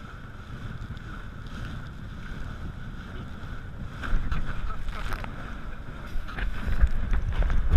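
Water rushing and splashing under a towed inflatable tube, with wind on the microphone. It turns louder and rougher about four seconds in as the tube bounces across the boat's wake, with splashes toward the end.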